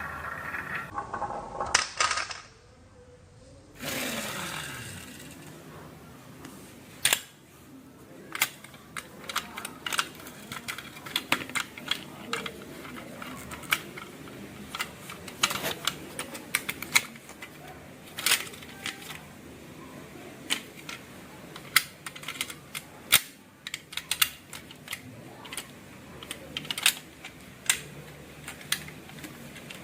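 Marbles rolling down a HABA wooden marble-run track, with many irregular sharp clicks and clacks as they hit the wooden pieces and each other. The first few seconds hold a short pitched sound and then a falling glide before the clicking sets in.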